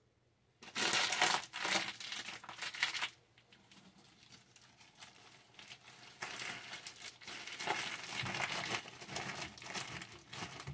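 A plastic bag of long grain rice crinkling as it is handled. There is a loud spell of rustling just after the start that lasts about two and a half seconds, a quieter gap, then more crinkling from about six seconds on.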